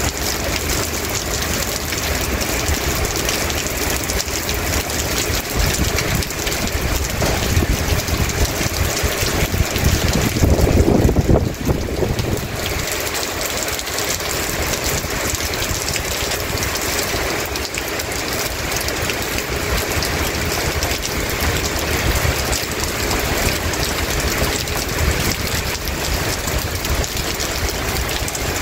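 Heavy rain falling steadily on a paved yard. A louder low rumble swells for about two seconds near the middle.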